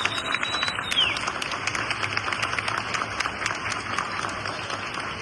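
Audience applauding, the clapping gradually dying down, with a brief falling whistle about a second in.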